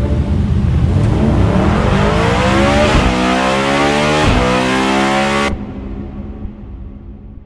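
Bugatti's 8.3-litre V16 engine accelerating hard, its pitch climbing and dropping back twice as it shifts up. It cuts off suddenly about five and a half seconds in, leaving a fading tail.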